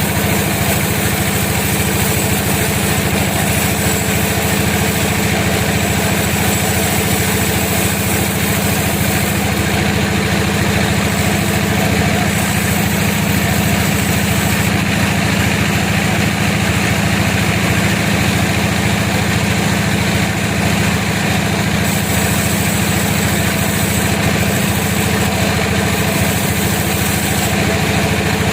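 Sawmill machinery running with a steady engine drone. A high hiss comes and goes over it several times.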